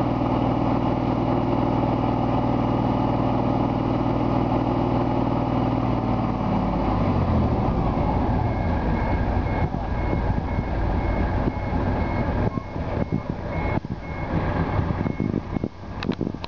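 Mitsubishi Fuso FV415J concrete mixer truck's diesel engine running steadily, its note dropping about six and a half seconds in. From about eight seconds in, the truck's reversing alarm beeps in a steady repeated pattern over the engine, with a few sharp knocks near the end.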